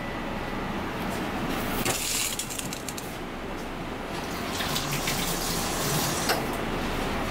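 Steady rushing background noise of a commercial kitchen, with a few faint ticks.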